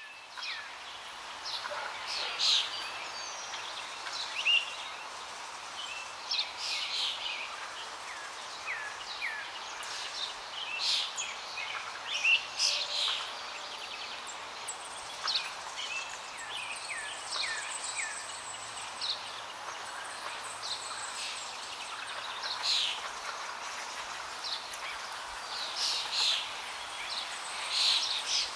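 Small birds chirping and calling, short notes every second or so, over a steady background hiss.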